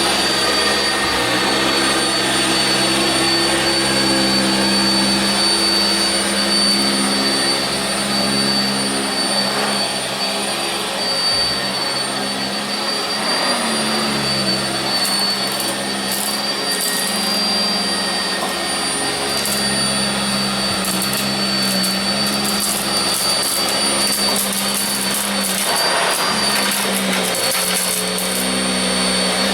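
Sanitaire SC679j commercial upright vacuum running on carpet: a steady high whine over a motor hum that wavers slightly as the machine works. Light crackling can be heard through the second half.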